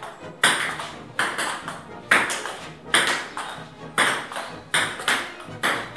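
Table tennis rally: the celluloid ball clicking off the paddles and bouncing on the table in a quick, fairly even rhythm of about two hits a second, each click followed by a short echo.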